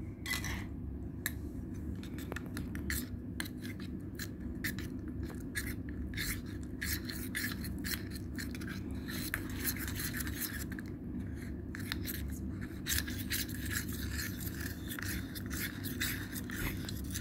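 A spoon scrapes and stirs inside a stainless steel tumbler, churning thick glue-and-paint slime as detergent-water activator is worked in. The scrapes come quick and irregular over a steady low hum.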